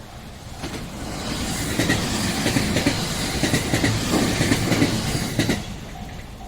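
A short train passing at speed over a level crossing, its wheels clattering rhythmically over the rail joints for about four and a half seconds before the sound cuts off. The crossing's warning bell rings in a steady repeating tone behind it, plainest after the train has gone.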